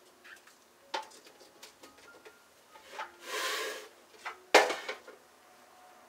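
Zucchini being handled in a metal mesh colander: a few light knocks, a brief rustling rub about three seconds in, then a sharper knock, the loudest, about four and a half seconds in.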